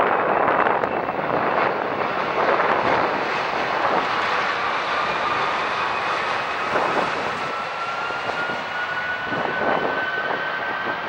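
Jet engines of a Boeing 787-9, Rolls-Royce Trent 1000s, running during the landing: a steady roar with a thin whine that rises slowly in pitch, easing off a little toward the end.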